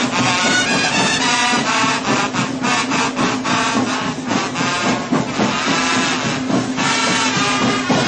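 School marching band playing brass over a steady drum beat.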